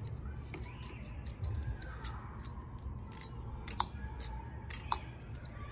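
Small irregular clicks and scrapes of a thin screwdriver tip working at the plastic body and contact points of a water pump pressure switch being taken apart, over a low steady rumble.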